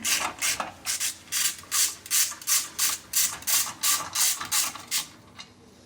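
Hand ratchet wrench clicking in quick back-and-forth strokes, about three a second, undoing a bolt on the steering knuckle; the strokes stop about five seconds in.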